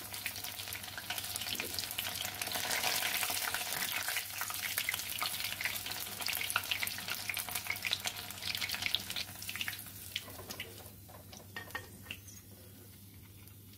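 Potato-and-paneer boats deep-frying in hot oil: a dense sizzle and crackle. After about ten seconds it dies down to scattered pops as the pieces come out of the oil.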